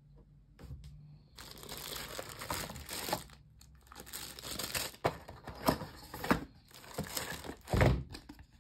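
Cardboard box packaging being handled: rustling and crinkling as the printed cardboard insert is lifted out of the box, with a few sharper knocks and a louder dull thump near the end.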